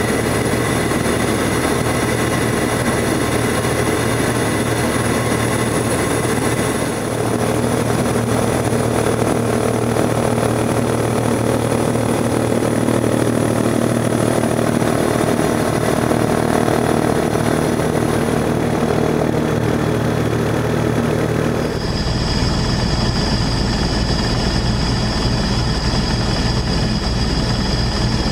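Aircraft motors and propellers running steadily in flight, recorded on board, a constant hum with a high whine. The pitch of the whine changes about seven seconds in and again about twenty-two seconds in.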